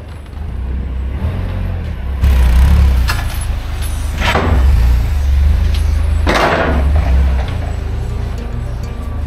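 Forklift loading pallets into a trailer at a dock, under a steady low rumble. Two short hissing bursts come about four and six seconds in.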